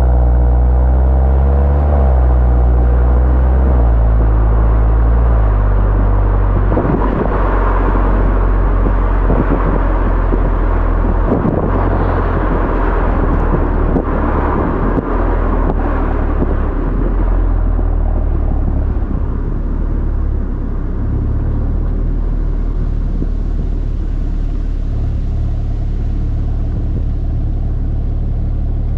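Akrapovič exhaust on a VW Golf 8 R's 2.0-litre turbocharged four-cylinder, heard at the tailpipes while it is driven gently in Race mode. A low, steady exhaust note shifts in pitch twice in the first several seconds, with a rushing road and wind noise over it through the middle.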